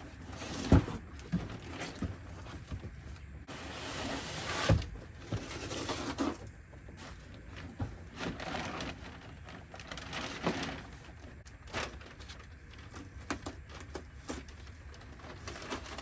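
A cardboard shipping box being opened and unpacked by hand: irregular rustling and scraping of cardboard and packing material, with scattered clicks and knocks and two sharper thumps, about a second in and about five seconds in.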